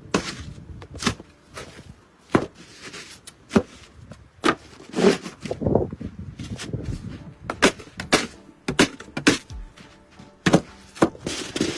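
Snow shovel scraping and knocking on a driveway in irregular strokes, about one or two sharp hits a second.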